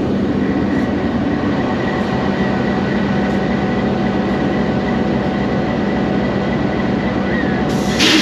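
GEU-20 diesel-electric locomotive idling at close range: a steady engine hum with a constant low drone and a faint high whine. A brief loud hiss comes near the end.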